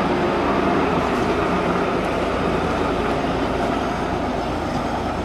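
1947 Bern standard tram (car 107, series 101–115) rolling past close by: steady running noise of its steel wheels on the street rails and its running gear.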